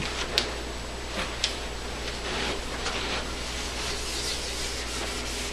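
A couple of small sharp clicks as a marker is handled, then a felt whiteboard eraser rubbing across a whiteboard from about two seconds in.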